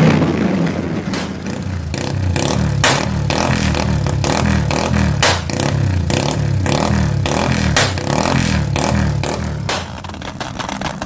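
Yamaha Y15ZR's 150 cc single-cylinder four-stroke engine being revved in quick repeated throttle blips, the pitch rising and falling about once every second or less. Many sharp clicks sound through it, and the revving eases off near the end.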